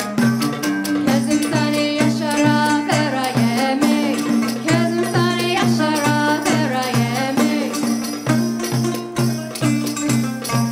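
Live Middle Eastern folk music for belly dance: a lute and a hand drum keep a steady repeating pulse, about two to three beats a second, under a wavering melody line.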